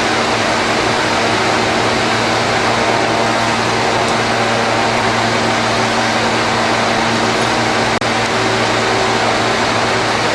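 Plasma bevel cutting machine's torch cutting: a loud, steady hiss over a steady hum, with a momentary break about eight seconds in.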